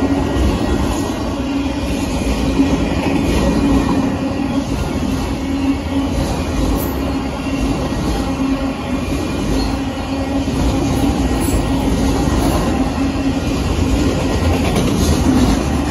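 Union Pacific freight train of autorack cars rolling past at steady speed: a continuous rumble of steel wheels on rail, with a steady low hum running through it.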